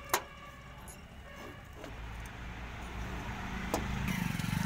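A sharp metallic click as the LPG regulator's spring and cover are handled, and a smaller click later, over a steady low rumble of a vehicle engine that grows louder near the end.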